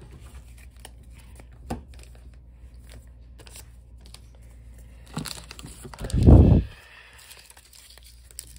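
Foil Pokémon booster pack wrapper crinkling and being torn open, with light handling clicks. About six seconds in comes a loud, deep half-second thump and rustle.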